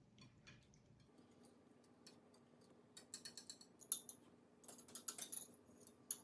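Faint, quick light clicking of a whisk stirring a bowl of wet batter ingredients (beaten eggs, milk, melted butter and vanilla), coming in quick runs from about halfway through.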